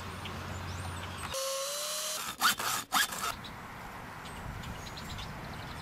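A small handheld power tool running briefly with a steady whine that rises slightly, after a low steady hum, then two or three sharp knocks of handling and a steady outdoor hiss.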